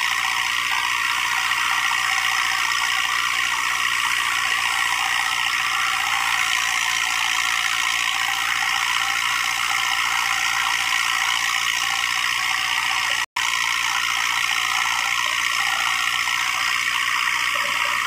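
Wheat thresher driven by a New Holland tractor, running steadily under load: a constant loud rushing whirr. The sound cuts out for an instant about 13 seconds in.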